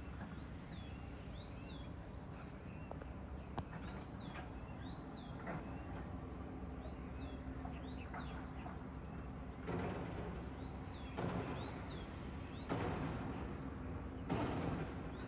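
Birds chirping over and over in short high calls, over a steady low hum of construction machinery. From about ten seconds in, four harsh noisy bursts of machinery noise, each about a second long, come one after another.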